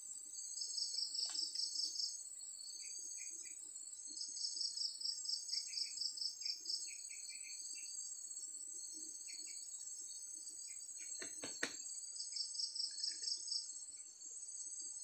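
Insects chirping in three bouts of rapid, evenly pulsed trills over a steady high insect whine, with a single short click about eleven seconds in.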